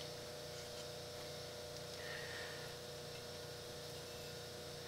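Faint scratch of a steel scribe drawn along a straight edge across a cast-iron cylinder head, about two seconds in, over a steady low hum.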